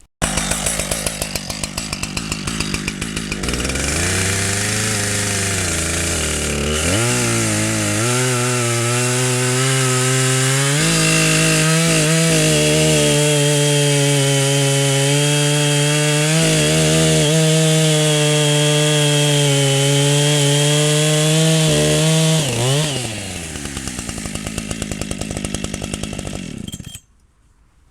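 Zomax 74 cc two-stroke chainsaw running: the engine climbs in speed over the first several seconds, holds at high throttle for about ten seconds, then drops back to a lower, uneven idle and stops abruptly near the end.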